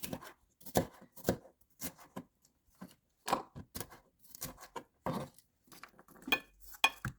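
Food being cut in the kitchen: a run of irregular, short, sharp cuts and taps, about one or two a second.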